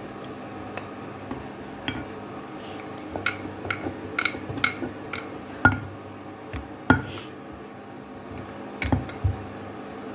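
Kitchen work at a stone counter while paratha dough is pressed flat and rolled out with a wooden rolling pin: a run of light clicks and clinks, then a few louder knocks about halfway through and near the end, over a steady low hum.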